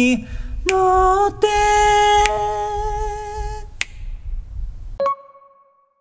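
A lone male voice singing an a cappella harmony line, holding a long note with a step up in pitch about a second and a half in, then fading out. A sharp click near the end, and the sound cuts off.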